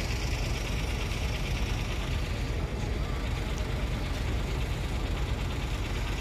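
Steady low rumble of diesel truck engines idling, even in level throughout.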